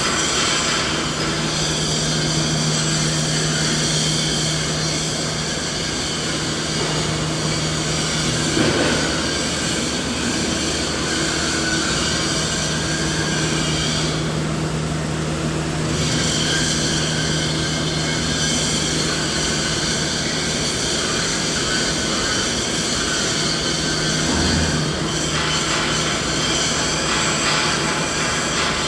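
Continuous machinery noise: a steady low hum and several constant whining tones over an even hiss, unchanging in level, with its energy labelled in the mid range of about 150 Hz to 2 kHz.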